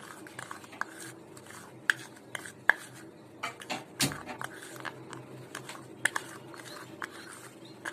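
Metal spoon stirring dry spice powder in a small bowl: irregular light clicks and scrapes of the spoon against the bowl, the sharpest about four seconds in.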